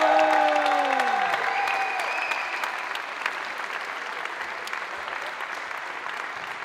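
Crowd applauding and cheering, with one loud drawn-out shout at the start that falls away about a second and a half in; the clapping carries on and slowly eases off.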